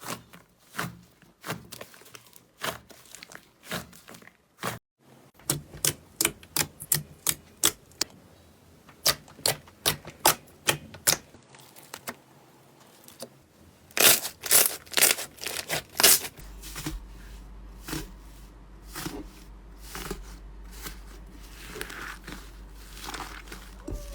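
Slime being poked and squeezed, giving a run of sharp clicks and pops, about two a second for a while, with a loud cluster past the middle. In the last third a low steady hum comes in under softer crackling.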